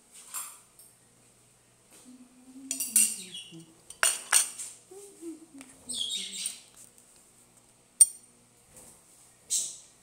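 A spoon clinking and scraping against a glass plate as microwaved pouch rice is served, with short rustles of the plastic rice pouch in between. Two sharp clinks stand out, about four and eight seconds in.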